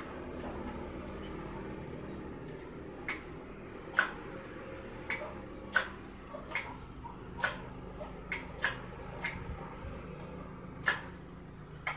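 Sharp, short clicks, about a dozen at uneven spacing from about three seconds in, as the cook-switch lever and its metal linkage under an opened electric rice cooker are worked by hand. The cooker is being repaired for a faulty switch latch.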